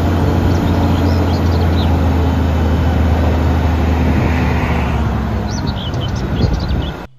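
Diesel engine of an eight-wheel tipper lorry running steadily with a deep hum while the hydraulic ram raises the tipper body. Birds chirp briefly a few times, and the sound cuts off suddenly near the end.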